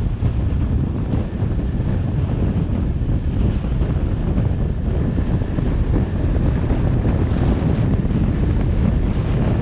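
Wind buffeting the microphone of a moving vehicle: a steady low rumble that does not let up.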